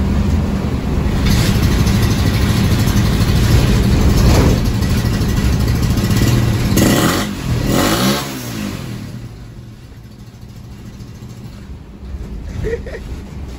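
Motorcycle engine running under way, with road and wind noise, on the move in traffic. About seven seconds in the pitch sweeps up and down, and after about nine seconds the sound drops to a much lower level.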